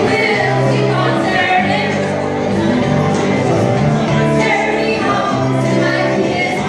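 Two women singing together into handheld microphones over an amplified backing track, with steady sustained low notes underneath.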